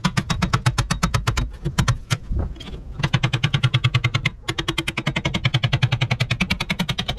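A hammer tapping fast on a broken scraper blade driven under an aquarium's top trim: a quick, even run of metal-on-metal taps about ten a second, with a couple of short breaks.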